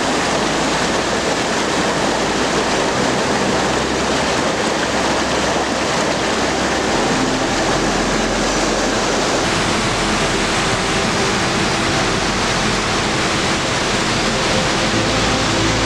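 Loud, steady rush of fast-flowing water, like a mountain stream or cascade close by.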